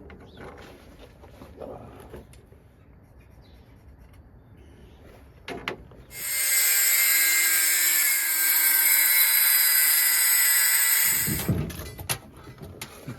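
Handheld electric power tool working on the van's steel side step, running steadily with a high whine for about five seconds, starting about six seconds in and then cutting off. A few light knocks before it.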